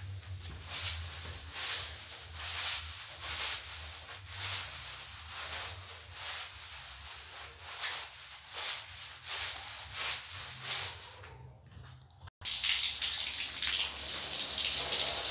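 Long-handled scrub brush scrubbing a soapy kitchen floor in rhythmic strokes, a little over one a second. About twelve seconds in this cuts off, and water from a garden hose gushes steadily onto the floor.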